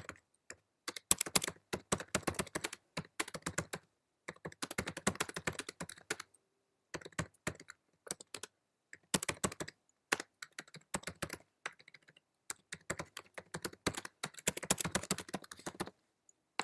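Typing on a computer keyboard: rapid runs of key clicks in bursts of a few seconds, broken by short pauses.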